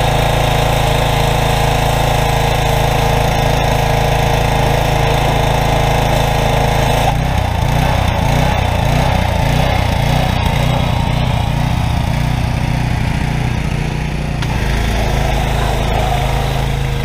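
Small gasoline engine of a pressure washer running steadily under load, with the hiss of the water jet from the spray wand. The engine and spray sound shift about seven seconds in.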